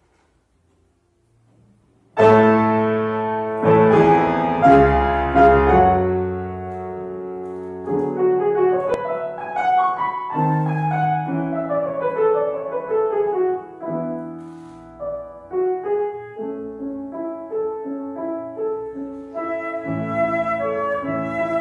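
After about two seconds of quiet, a grand piano begins the introduction of a piece for flute and piano. It opens with loud held chords, then moves into quieter running figures.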